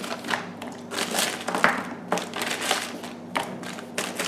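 Plastic bag crinkling in short irregular rustles as a hand rummages in it for frozen chicken wings.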